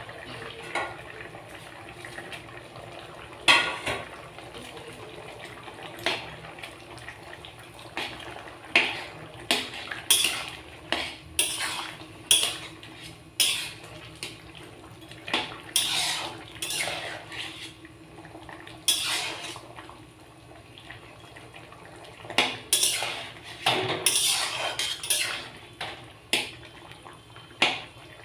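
A metal spoon scraping and clinking against a cooking pan as the curry is stirred, in irregular strokes about once a second, some in quick runs, over a faint steady simmer.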